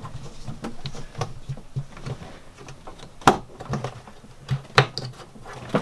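Small plastic clicks and knocks as the red spout cap on a plastic oil pail's lid is handled, with a sharp click a little over three seconds in and another near five seconds, over a faint low hum.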